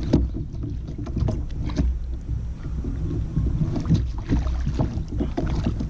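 Low steady rumble of water and wind around a kayak, with scattered light knocks and clicks as a landing net, lure and fishing gear are handled.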